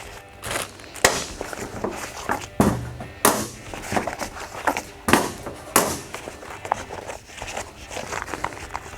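Tire-changing kit being unpacked and handled on a table: chrome steel tire spoons and small parts clacking and knocking as they are picked up and set down, with many sharp knocks, the loudest about a second in and again about five seconds in.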